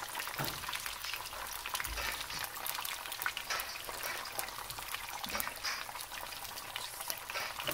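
Tomatoes and garlic frying in olive oil in a pan: a steady sizzle of many small crackling pops.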